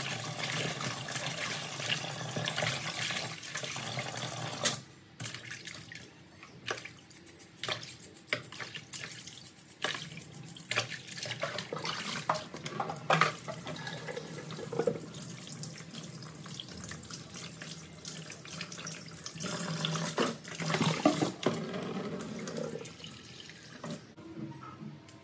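Tap water running into a plastic basin in a stainless steel sink while leafy greens are swished and rinsed by hand. About five seconds in the steady flow drops away, leaving irregular splashes, drips and the knock of the plastic basin being handled and tipped in the sink.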